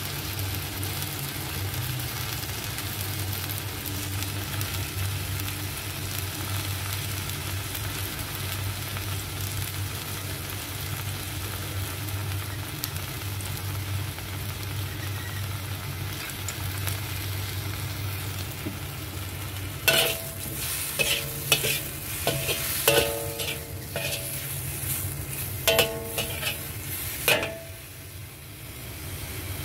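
Shiitake mushroom slices frying in a wok with a steady sizzling hiss over a low hum. From about two-thirds of the way through, a metal spatula clatters and scrapes against the wok with short ringing clangs as the mushrooms are tossed, stopping shortly before the end.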